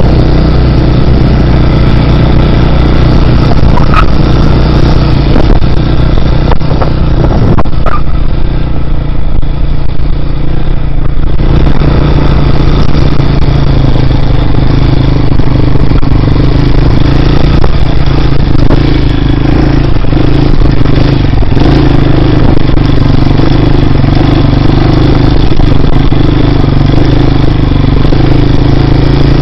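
Dirt bike engine running loud under way, heard from a helmet-mounted camera; about eight seconds in the engine note drops off for a few seconds, then picks back up.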